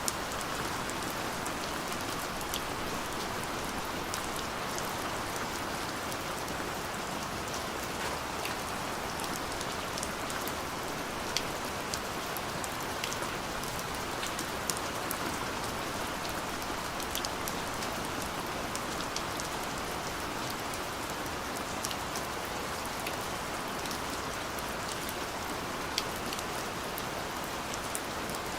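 Steady rain falling, with many separate drops ticking on hard surfaces.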